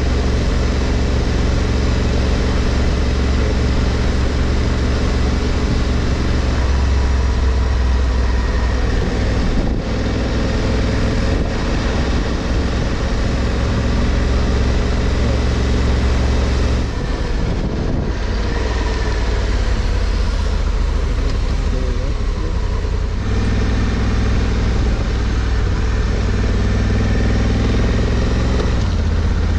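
Honda Africa Twin's 1084 cc parallel-twin engine running under way, heard from the rider's seat over a steady haze of wind and wet-road noise. After about seventeen seconds the engine note drops back for several seconds as the bike slows, then picks up again.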